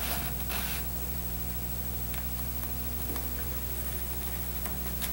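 Steady background hiss with a low hum, and a few brief rasps of an upholstery needle and twine drawn through burlap, the clearest just under a second in and another near the end.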